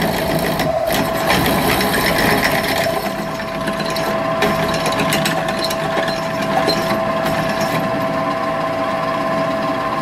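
Drill press running with its bit cutting into a metal tube: a steady motor whine under the scraping of the cut.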